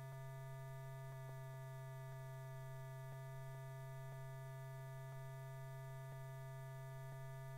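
Steady low electrical hum with a faint tick about once a second: the background hum and clicks of an old film soundtrack.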